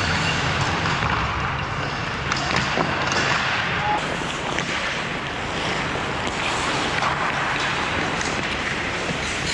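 Ice hockey skates scraping and carving on rink ice, a steady hiss with occasional faint knocks of sticks and puck.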